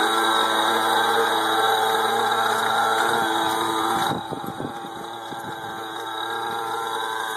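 O.S. .37 two-stroke glow (nitro) helicopter engine idling steadily. It drops in level about four seconds in, with a few scuffs of flip-flop footsteps on concrete around then.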